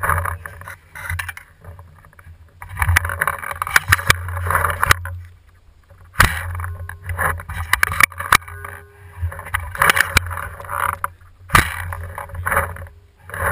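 Close rustling and clattering handling noise on a camera mounted on an Airrow bow's barrel as it is carried: uneven bursts of rubbing noise a second or two long, broken by several sharp knocks.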